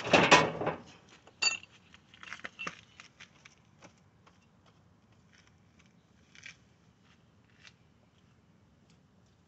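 Tools and parts being handled during a car repair: a loud scrape in the first second, a metallic clink about a second and a half in, then scattered clicks that thin out.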